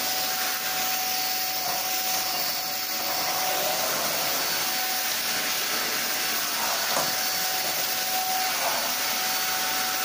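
PUPPYOO WP521 corded stick vacuum running steadily on a suction test: a rush of air with a constant, even motor whine. There is a faint click about seven seconds in.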